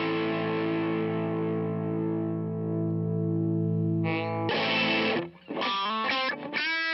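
Electric guitar, a Fender Stratocaster Custom Shop, played through a DOD Overdrive Preamp 250 with the overdrive on. One distorted chord rings and slowly fades for about four seconds. Then come two short strummed chords and a quick run of single notes.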